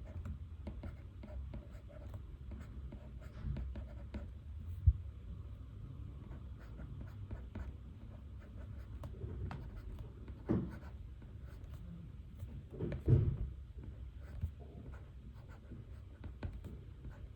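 Pen writing on paper in many short scratching strokes, with a sharp tap about five seconds in and two louder handling bumps around ten and thirteen seconds in.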